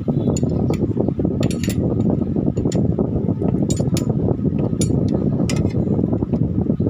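A combination wrench clinks against the camshaft bearing-cap bolts as a camshaft is bolted down onto an open cylinder head. The clinks are sharp and irregular, some in quick little clusters, over a steady low background rumble.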